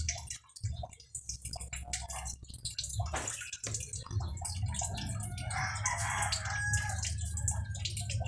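A rooster crows once, starting about five seconds in and lasting around a second and a half, over a steady low hum and scattered light ticks.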